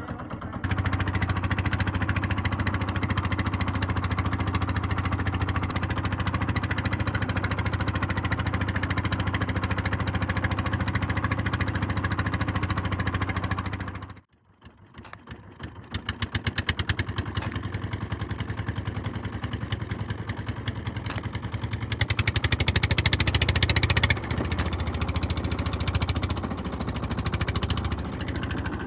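Small boat engine running steadily. About halfway through it stops abruptly for about a second. It then comes back slower, with separate chugging firing beats, and is loudest for a couple of seconds near the end.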